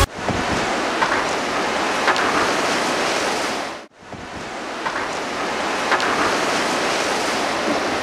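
Steady rushing noise of a river in heavy flood below a dam, mixed with wind on the microphone. The sound drops out briefly about four seconds in, then comes back.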